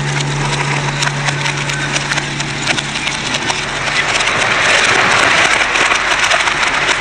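Hydraulic press crushing brittle plastic parts: continuous crackling and snapping. A steady low hum stops about two and a half seconds in, and the crunching grows louder from about four seconds as more plastic gives way.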